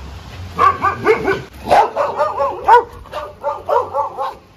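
A young indie dog giving a rapid run of short, high calls that rise and fall, yips mixed with whines, starting about half a second in.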